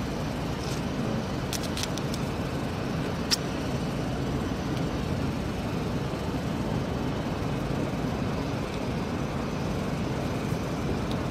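Steady low rumbling background noise, with a few faint clicks and one sharp click about three seconds in.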